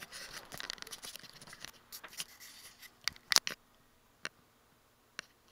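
Handling noise from a phone camera being turned around in the hand: close rustling and scraping for about three seconds, then a sharp click, followed by a couple of fainter ticks.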